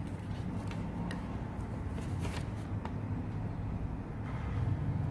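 A sheet of origami paper being handled and folded, giving a few faint crackles and ticks in the first half, over a steady low hum.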